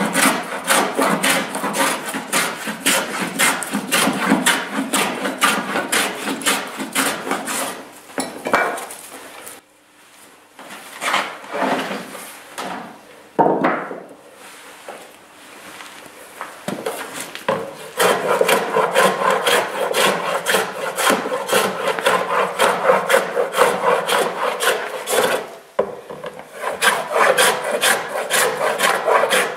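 Hand tools shaving wood from the tapered scarf end of a wooden boat plank: rapid short scraping strokes, several a second, with a short break about a third of the way through and a sparser, quieter stretch around the middle. In the last part the strokes come from a small hand plane.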